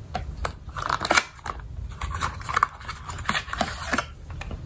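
A slim cardboard makeup-brush box being opened and the capped brush slid out: a series of light clicks, taps and scrapes of cardboard and plastic.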